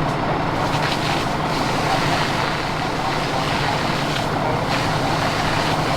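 Steady low rumble of a large vehicle's engine idling, with a constant even noise over it.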